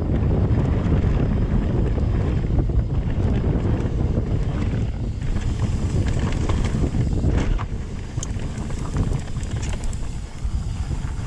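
Wind buffeting the camera's microphone and tyre rumble as a mountain bike rolls down a dirt trail, with a few clicks from the bike over the rough ground. The rumble eases a little in the last few seconds.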